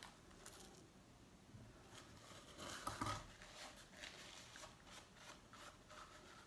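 Near silence with faint rustling as a paper tissue is wiped across the lips, a little louder about three seconds in.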